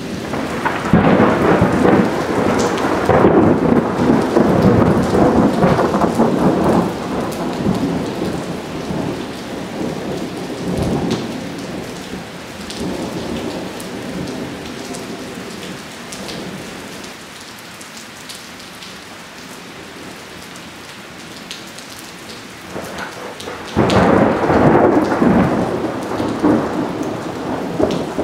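Steady heavy rain with two long peals of thunder. The first rolls in about a second in and fades away over several seconds. The second starts suddenly near the end.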